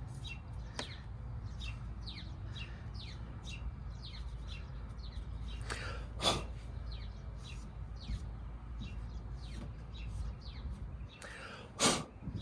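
A small bird chirping over and over, short quick downward chirps two to four a second, over a steady low rumble. Two louder sharp knocks, about halfway through and near the end.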